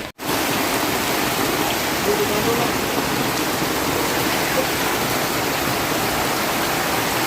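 Steady, loud rushing of water: heavy rain and running floodwater. It starts just after a brief dropout at the very beginning.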